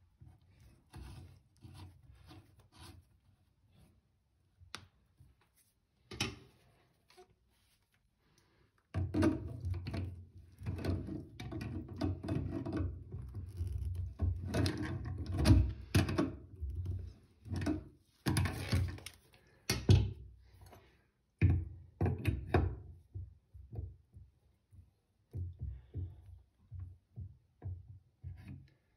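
Irregular thunks, knocks and clicks of a chrome mixer tap and its parts being handled on a ceramic washbasin. Scattered light clicks at first, then a dense run of knocks and handling noise lasting about fifteen seconds, then sparser clicks near the end.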